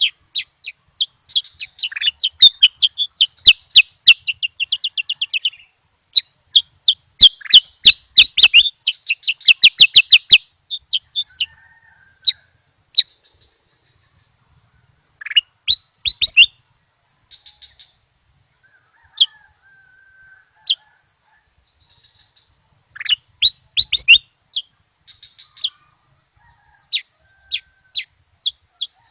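Bulbul song: fast runs of sharp, high chirping notes for the first ten seconds or so, then scattered single chirps and short phrases, over a steady high hiss.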